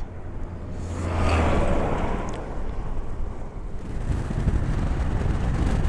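A motorcycle running at road speed with strong wind buffeting the microphone, the engine a low steady drone under the rushing wind noise.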